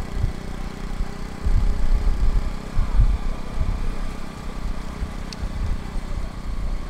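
A motor vehicle engine running steadily under heavy, irregular low rumbling, loudest from about one and a half to three seconds in.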